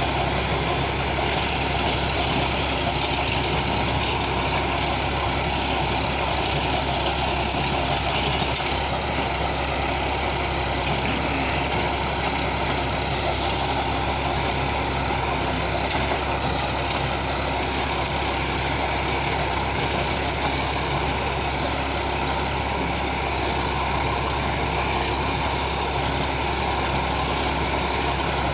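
Sonalika tractor's diesel engine running steadily under load while it pulls a Jaswant rotavator through the soil, the tiller's blades churning the earth.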